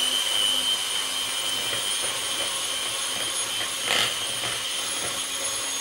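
Electric hand mixer running steadily, its motor whining as the beaters whip cottage cheese and eggs in a plastic bowl, with a brief knock about four seconds in.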